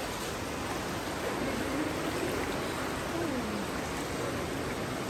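Steady rush of river water flowing through a cave.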